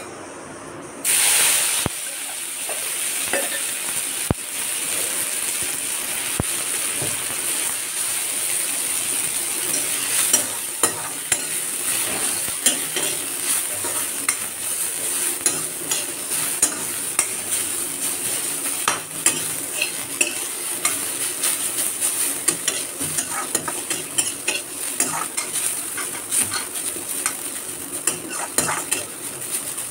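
Chopped gundruk (fermented mustard greens) goes into hot mustard oil in a metal kadai with a sudden loud sizzle about a second in. It then fries with a steady sizzle while a steel spoon stirs it and scrapes the pan, giving frequent clicks.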